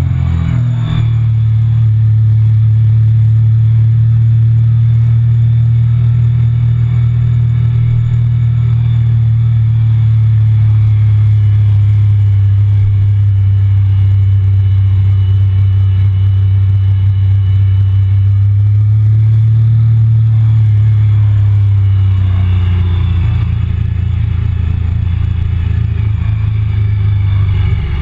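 Triumph Speed Triple 1050's inline three-cylinder engine running at low, steady revs as the bike slows to pit-lane speed. The engine note wavers briefly near the start and drops lower a little over three-quarters of the way through.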